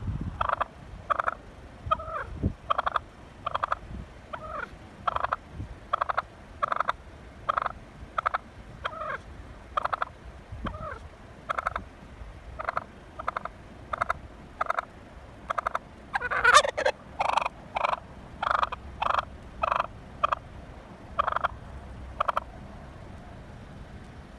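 Wild turkey calling in a long series of short, sharp notes, roughly one a second, with the loudest call about sixteen seconds in.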